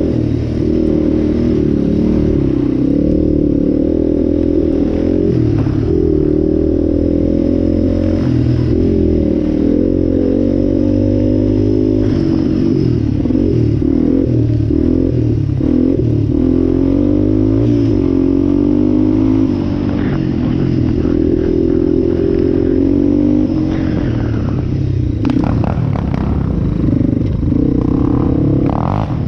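Yamaha Raptor 700 quad's single-cylinder four-stroke engine running as it is ridden, its pitch rising and falling with the throttle. A few clattering knocks come near the end.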